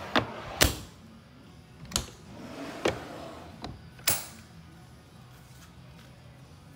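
Boat storage drawers sliding on their runners and shutting, with their flush ring-pull latches clicking: about six sharp knocks and clacks in the first four seconds, the loudest near the start, with a soft sliding rush between some of them.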